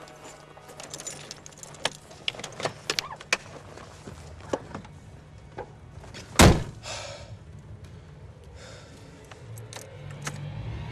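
Car door and keys being handled: small clicks and jangles of keys, then the car door slammed shut once, loudly, about six and a half seconds in.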